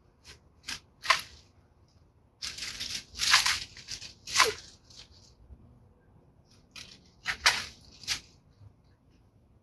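Long-handled bypass loppers cutting through dry rose canes: a series of sharp snips, about eight in all, with dry branches and leaves rustling between the cuts.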